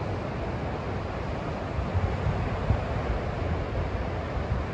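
Rough surf breaking along the shore, a steady wash of noise, with wind buffeting the microphone in a low, uneven rumble.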